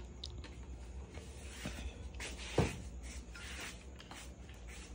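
Rustling and light clicks of a fishing rod and reel being handled, with one sharper knock about two and a half seconds in.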